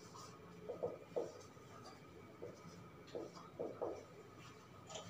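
Marker pen writing on a whiteboard: a series of short, faint strokes as characters are drawn.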